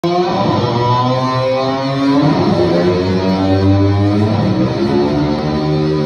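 Rock band playing, led by electric guitar with long held notes that slide in pitch.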